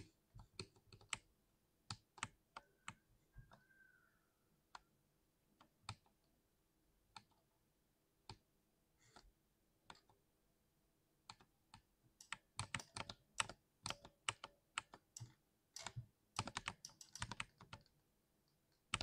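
Keys of a 60% keyboard being pressed: single keystrokes spaced a second or so apart at first, then quicker runs of typing in the second half.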